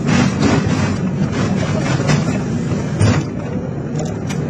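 Excavator's diesel engine running steadily under load while its hydraulic shear works scrap steel, with repeated sharp metal clanks, the loudest about three seconds in.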